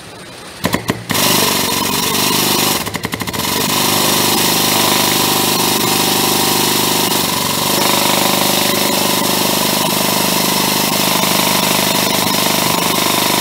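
Hydraulic pump of a car frame-straightening bench running and pulsing rapidly as it drives the cylinder that swings the ramp arm; it sets in with a few knocks and runs steadily from about four seconds in.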